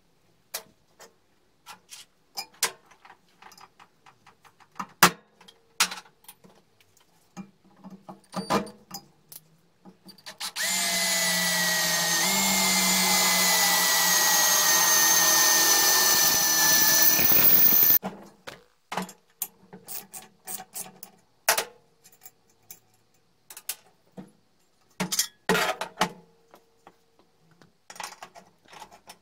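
Power drill boring through the steel plate of an old lawnmower blade: a steady run of about seven seconds with a whine that sags slightly in pitch, stopping abruptly. Scattered knocks and clicks come before and after it.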